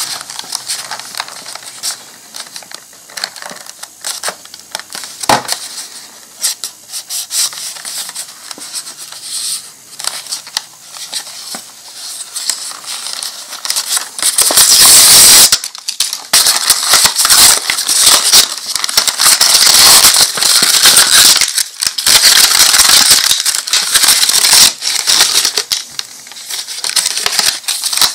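Close-miked crinkling, crackling and tearing of a Pez dispenser's cardboard and clear plastic blister packaging being opened by hand, with scattered clicks and taps. The crinkling gets loudest and densest from about halfway through.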